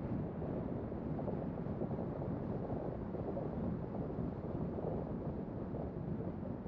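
Steady road noise of a car driving along a city street: an even low rumble of tyres and engine, mixed with wind, with no distinct events.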